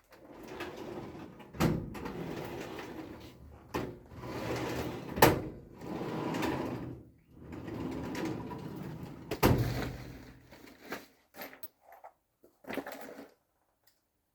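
Hand tools working a bearing out of a Honda Miimo robotic mower's wheel motor: stretches of scraping and creaking metal broken by four sharp knocks, then a few lighter clicks near the end.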